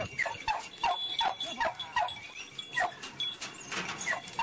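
Hunting dogs yelping: a quick, irregular run of short, high calls, each falling in pitch.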